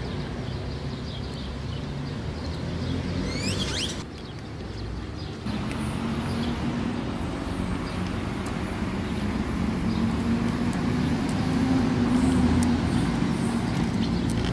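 A motor vehicle's engine running close by over street traffic noise, its steady hum growing louder in the second half. A brief high chirping comes about three seconds in.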